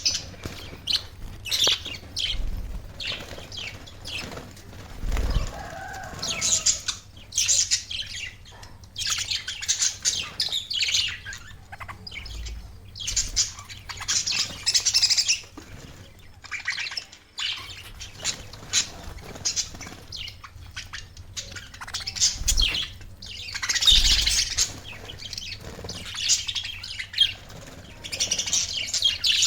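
Budgerigars chirping and warbling with a constant stream of quick, scratchy calls, with a few soft low thumps in between.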